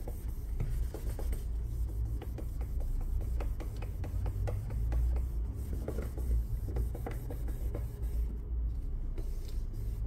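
Cloth rubbing across the glass back of an iPhone 15, wiping it clean in many short, irregular strokes over a steady low hum.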